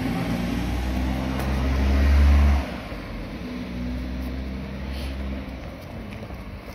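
A motor vehicle's engine running nearby, swelling louder for the first two and a half seconds, then dropping off sharply and carrying on more quietly.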